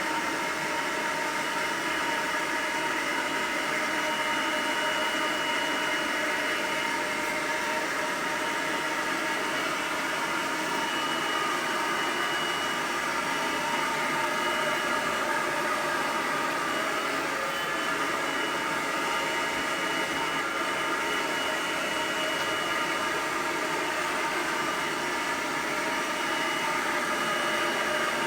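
Hair dryer blowing steadily: an even rushing of air with a constant motor whine.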